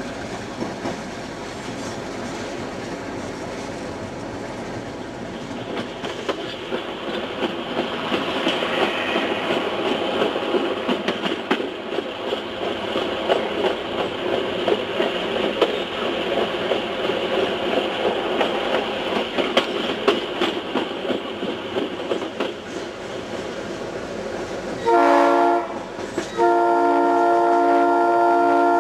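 Diesel locomotive running along the track with steady wheel-and-rail noise and clicking over the rail joints. Near the end its multi-tone horn sounds a short blast, then a longer one of about two seconds.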